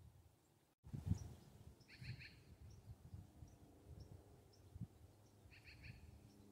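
Quiet outdoor ambience. A bird calls twice, each call a short quick run of chirps, about two seconds in and again near the end. Faint high chirps repeat about twice a second over a low, uneven rumble, and the sound cuts out briefly near the start.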